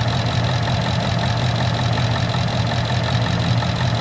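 2015 Ford Mustang's V8 engine idling steadily.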